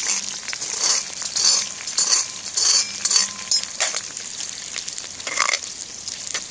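Someone chewing a piece of crisp fried onion, crunching in short bursts about once or twice a second, over the steady sizzle of onion frying in sunflower oil in a cast-iron kazan.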